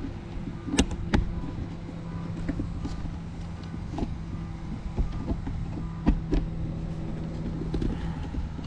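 Folding wagon rolling over cracked asphalt: a steady rumble with a low hum from the wheels, and the frame knocking and rattling sharply a few times, twice close together about a second in and again around six seconds in.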